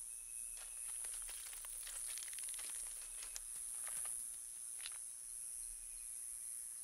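Quiet forest-floor ambience: a steady high-pitched insect drone, with light crackling and rustling clicks through the first few seconds.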